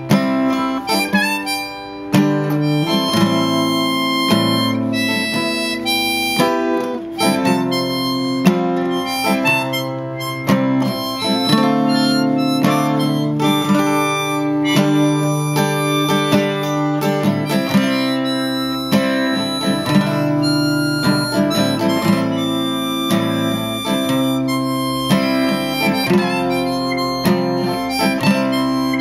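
Harmonica in a neck rack playing a melody over an acoustic guitar accompaniment, the two played together by one person.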